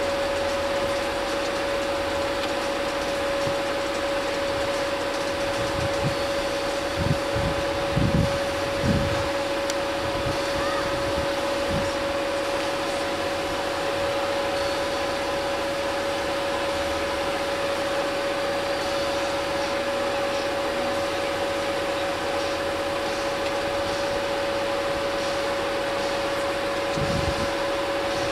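Electric bells of an Italian FS 64 level crossing ringing continuously and steadily while the red lights flash and the barriers are down, warning of an approaching train. A few brief low thumps come about seven to nine seconds in.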